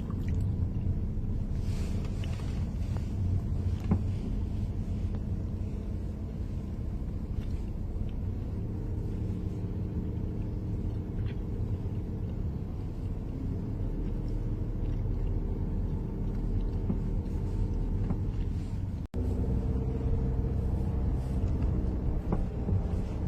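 Steady low engine rumble of a vehicle, with one sharp click about four seconds in and a brief cut in the sound near the end.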